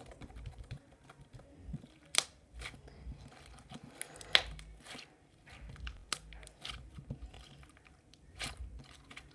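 Slime being poked, then kneaded and stretched by hand, giving irregular small clicks and pops.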